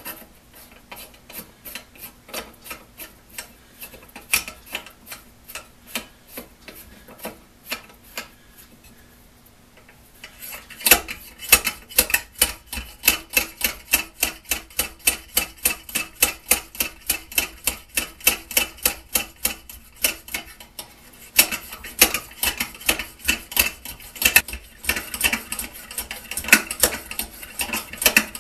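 Hand air pump of a vintage gasoline blowtorch being worked to pressurise the fuel tank, its leather-cup piston stroking in the cylinder with a rapid train of sharp clicks, a few a second. The strokes grow louder and quicker after a brief lull about a third of the way in.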